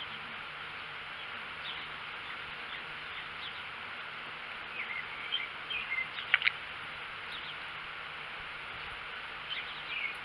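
Steady insect chorus, with short bird chirps about halfway through and again near the end, and a couple of sharp clicks a little after the middle.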